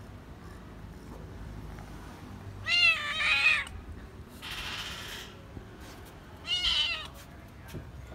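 Domestic cat meowing loudly to demand food: a drawn-out double meow about three seconds in and a shorter meow near the end, with a short hissing noise between them.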